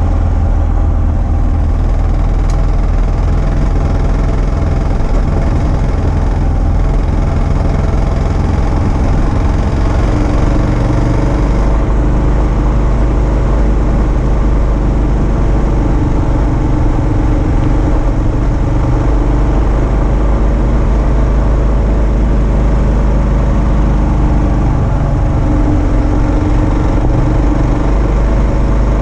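2022 Kawasaki KLR650's single-cylinder engine running steadily while riding a gravel road, its note shifting about a third of the way in.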